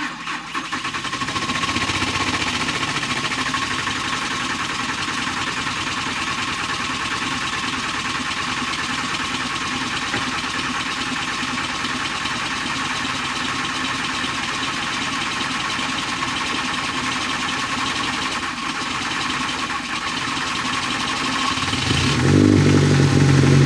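Diesel car engine being cranked on the starter in about −25° cold, with no block heater, for around twenty seconds without firing. Near the end it catches and runs with a louder, low, rough note. The owner believes the fuel had gelled.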